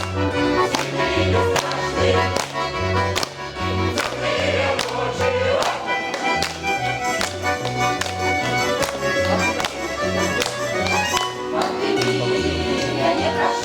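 Instrumental interlude of a folk song and dance ensemble's band, played to a steady beat with an alternating bass line and sharp percussive strokes about twice a second, the choir silent.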